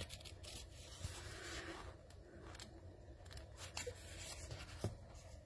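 Pages of a small paperback guidebook being leafed through: faint paper rustling, with a couple of soft clicks in the second half.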